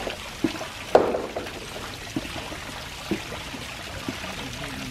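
Rock waterfall spilling steadily into a swimming pool, a continuous trickling pour, with a few short splashes in the water, the loudest about a second in.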